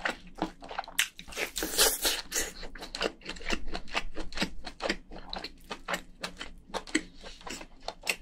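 Close-miked mouth sounds of a person chewing soft, moist crayfish meat: rapid wet clicks and smacks, densest about one to two seconds in.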